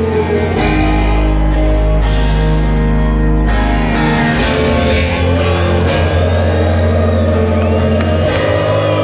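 Live rock band playing a slow, heavy song: sustained bass and guitar notes with singing over them, and scattered shouts and whoops from the audience.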